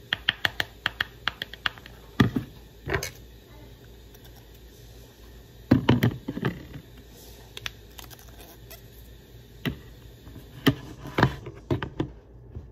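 A quick run of light clicks, then scattered knocks and taps: a plastic measuring spoon and a knife knocking against a plastic bowl as sticky honey is worked off the spoon.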